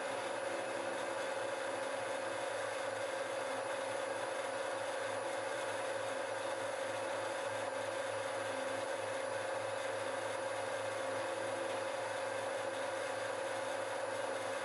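Warco VMC milling machine's spindle running steadily while an end mill takes a 4 mm deep cut in brass, a steady whine with one strong tone and the fine chatter of chips being cut.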